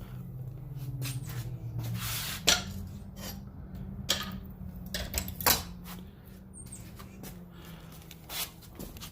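Scattered clinks and knocks of metal tools and parts being handled, as a fire extinguisher bracket and seat bolts are removed, over a low steady hum.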